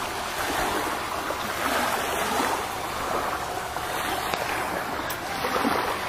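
Small waves lapping steadily at a sandy shore, a continuous wash of water.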